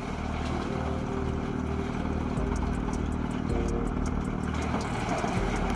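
New Holland TM190 tractor engine running steadily, driving a Farmi CH380 PTO wood chipper, with a low pulsing rumble and light ticks from the feed.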